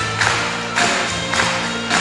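Live worship music: a band with acoustic guitars playing steady chords over a sharp beat struck about twice a second.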